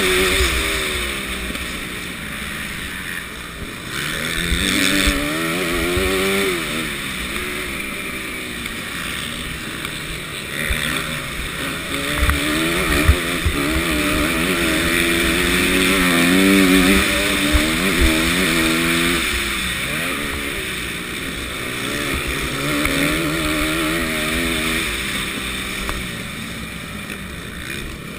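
Motocross bike engine revving up and falling back again and again through the gears under race load, heard from a helmet-mounted camera with heavy wind hiss and a few knocks from bumps in the track.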